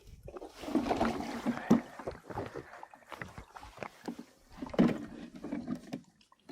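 Water splashing and sloshing with irregular knocks as live bait fish are handled in water and let go into the lake. There are louder splashes a little under two seconds in and again about five seconds in.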